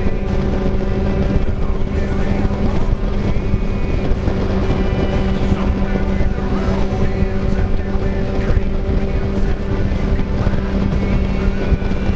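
Motorcycle engine running at a steady pitch while cruising, heard from on the bike, with wind and road noise.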